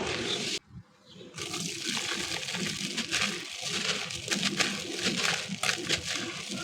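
Wet, gritty concrete being crumbled and crushed in water: a dense crackle of small crunches and gritty splashing. It drops out almost to silence briefly just under a second in, then resumes.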